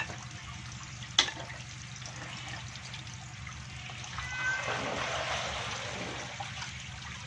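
Shallow water sloshing and trickling as feet wade through a concrete tank crowded with live stinging catfish, louder for a couple of seconds past the middle. A sharp knock comes about a second in.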